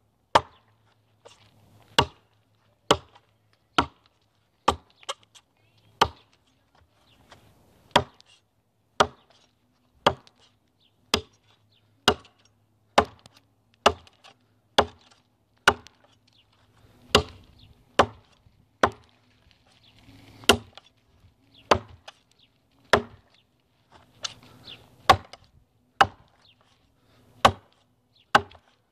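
A heavy 12-inch, quarter-inch-thick 1095 carbon steel TOPS El Chete chopper biting into a log: sharp wood-chopping blows repeated about once a second, around thirty strikes.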